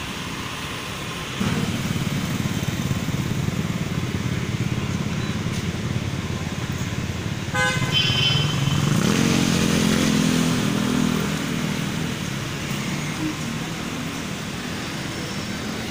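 City street traffic: engines of passing vehicles, louder from about a second and a half in, with a short horn beep about halfway through and then a vehicle engine rising in pitch as it speeds up past.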